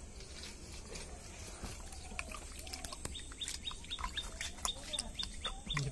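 A small bird chirping over and over, short high notes about three a second, starting about halfway through, over a steady low background hum.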